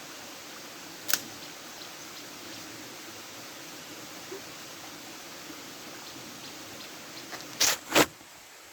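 Steady rushing hiss of a waterfall. A sharp click about a second in and two loud knocks in quick succession near the end.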